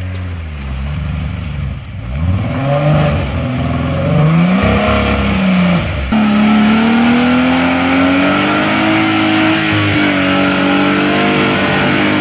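Jeep Wrangler's engine revving hard as it powers through deep mud with its tyres spinning. The engine note rises and falls several times, then jumps higher about halfway through and stays high.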